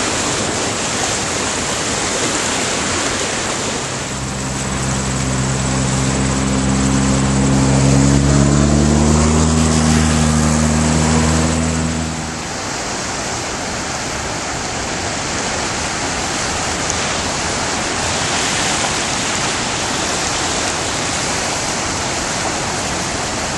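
Flooded river rushing and churning, a steady noise of fast water. From about four seconds in, an engine adds a low steady hum that stops abruptly at about twelve seconds.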